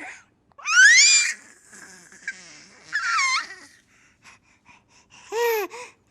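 Baby laughing: a high rising squeal about a second in, breathy wheezing in-breaths, a second squeal that falls in pitch, then two short lower calls near the end.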